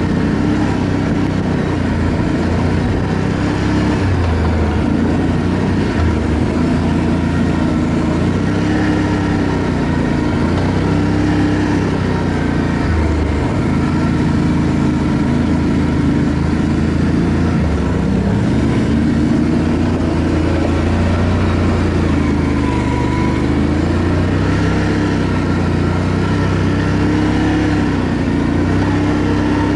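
ATV engine running while riding, its pitch rising and falling every few seconds with throttle and speed changes.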